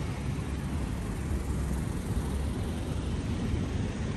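Low, steady rumble of a motor vehicle.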